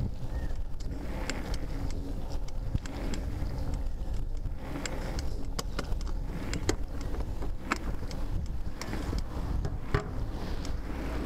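A bicycle rolling along a wet concrete footpath, heard from a camera mounted on it: a steady low rumble of tyre and wind noise, with many sharp clicks and knocks from the bike and its mount jolting over the paving.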